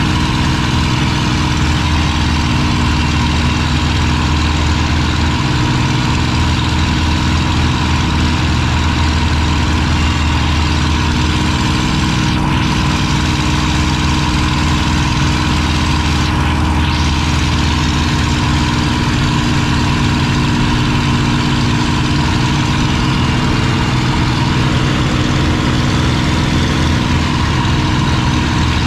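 P-51D Mustang's Packard Merlin V-12 engine running steadily in cruise flight, heard from inside the cockpit with a constant rush of air.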